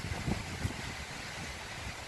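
Wind buffeting the microphone: uneven low rumbling gusts over a steady rushing hiss.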